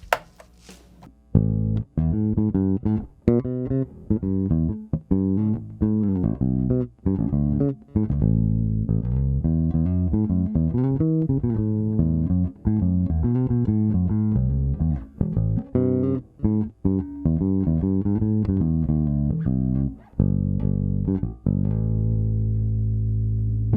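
Nordstrand Acinonyx short-scale electric bass played through its bridge pickup on the fourth tone-selector setting: a plucked bassline of quick, mostly short notes starting about a second in, ending on a long held note.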